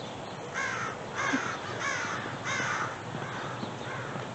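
American crows cawing: four harsh caws in quick succession, about two-thirds of a second apart.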